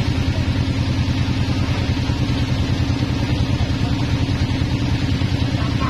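Engine driving a band sawmill running steadily with a fast, even pulse, the saw turning without cutting.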